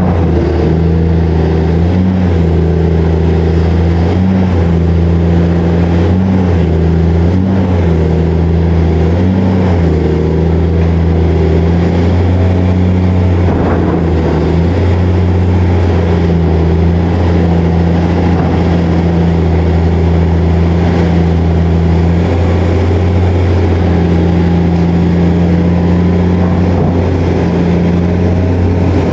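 Diesel engine of an excavator working, running loud and steady, its note stepping up and down every second or two as the hydraulics take and release load.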